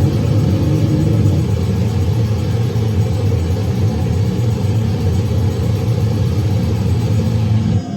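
A loud, dense wall of heavily distorted low rumbling noise from an amplified goregrind performance, holding steady without breaks, then cutting off abruptly near the end.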